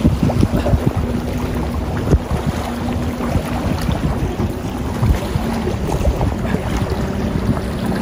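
Wind buffeting the microphone in gusts, with a faint steady low hum running underneath.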